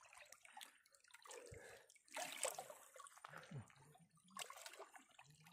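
Faint sloshing and splashing of hands groping through shallow muddy water, in a few short bursts.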